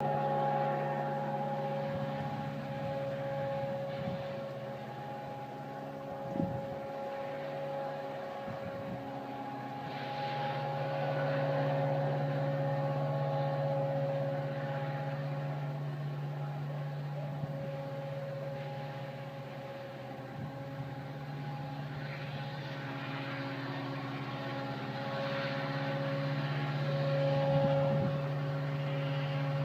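Unexplained trumpet-like sound: a steady drone made of one low tone and two higher ones held together, swelling and fading slowly over many seconds.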